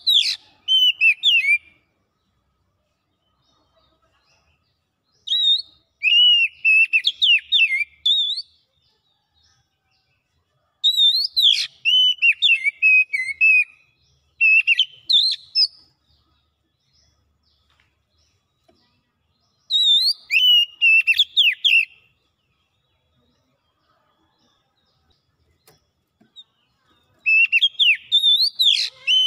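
Oriental magpie-robin singing: about six whistled, warbling song phrases of one to three seconds each, with pauses of a few seconds between them.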